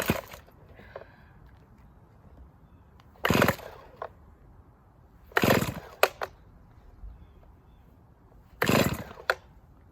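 Chainsaw's recoil starter cord pulled three times, each pull a short rip about two to three seconds apart, with a few clicks between. The cold engine does not catch.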